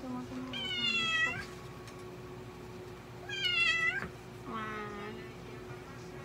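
A black-and-white domestic cat meowing three times while held on its back for treatment: two loud meows about half a second and three seconds in, then a fainter, lower one just after the second.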